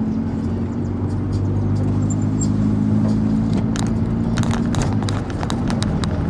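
Volkswagen Gol's engine running steadily with a deep, even rumble at a constant pitch. A few light clicks come in the second half.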